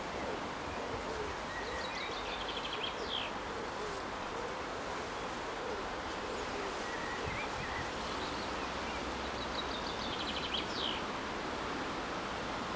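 Steady rustle of leaves and breeze in the trees, with a small songbird singing a short phrase of rapid high notes ending in a quick downward flourish, twice: about two and a half seconds in and again near ten seconds.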